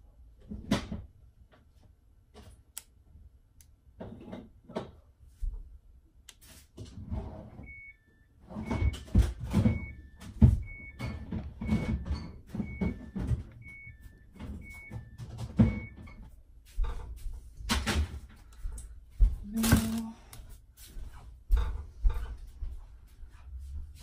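Kitchen clatter as food containers and packaging are handled and set down on a tiled counter, with knocks and cupboard or door sounds coming thick and fast. A faint two-note electronic beep repeats about once a second for several seconds in the middle.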